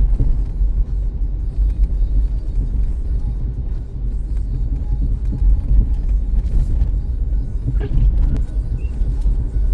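Steady low rumble of a 2005 Caravan minivan driving in slow traffic on a snowy road, engine and road noise heard from inside the cabin.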